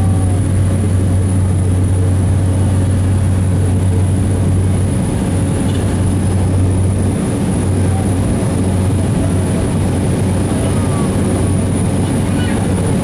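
Airplane engines at takeoff power heard from inside the cabin during the takeoff roll and liftoff: a loud, steady drone with a strong low hum and a faint, thin high tone.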